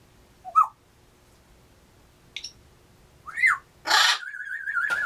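African grey parrot whistling: a few short gliding whistles and a brief high chirp, then about four seconds in a loud harsh noisy burst that runs straight into a warbling, wavering whistle held for nearly a second.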